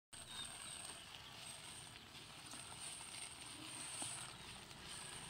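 Faint, scattered crackles from a wood fire burning under a wok, over a steady thin high hiss of outdoor background.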